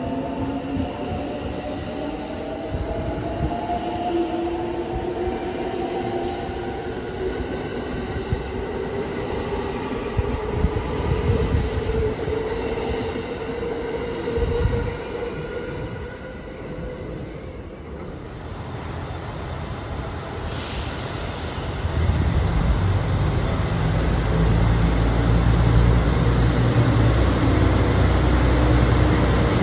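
An electric limited express train pulling out, its motor whine rising steadily in pitch as it picks up speed, with wheel and track noise. About 22 seconds in this gives way to the louder, steady low rumble of a HOT7000-series diesel railcar's engines.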